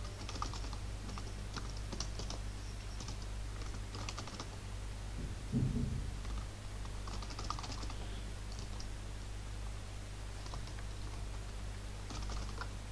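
Computer keyboard typing in irregular clusters of keystrokes over a steady low electrical hum, with a brief low thump about halfway through.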